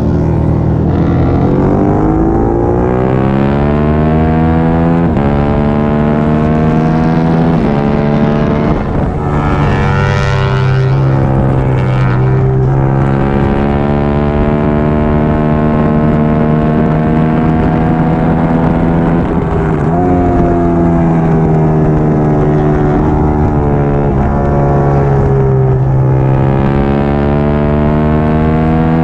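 Triumph Daytona 675R's inline-three engine running hard under race load. Its pitch climbs and drops sharply every few seconds through gear changes, with a brief lull and rapid pitch changes around ten and twenty seconds in, where it slows and downshifts.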